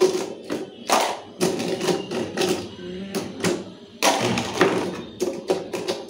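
Plastic clothes pegs clattering as they are picked by hand out of a plastic spin-mop basket and dropped into a bowl: an irregular string of light clicks and knocks.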